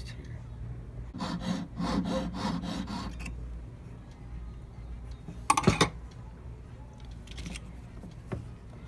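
Quick rasping strokes of a hand tool cutting a notch into a gold ring band held against a wooden bench pin, about four strokes a second for a couple of seconds. A short, loud clatter comes about halfway through, followed by a few faint ticks.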